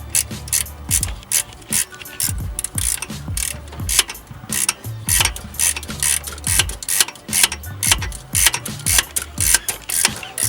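Ratchet wrench clicking in quick repeated strokes as a 14 mm bolt is worked loose. Under it runs a laid-back hip-hop beat with kick drum and bass.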